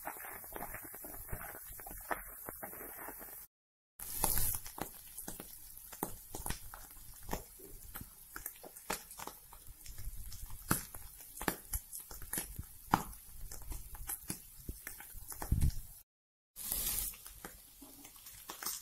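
Spatula scraping and clicking in a frying pan as meat and onions are stirred, then irregular sharp taps of a spoon as chili powder is spooned into the pan. The sound cuts out to silence twice, briefly.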